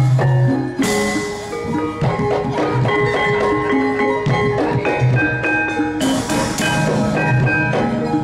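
Javanese gamelan music: bronze metallophones ring out struck, sustained notes over deep kendang drum beats.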